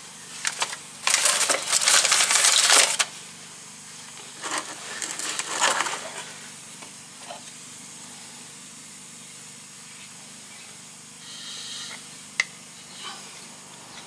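Clattering and scraping of hand tools and brake parts being picked up and handled, loudest in two stretches in the first six seconds, with a single sharp click near the end.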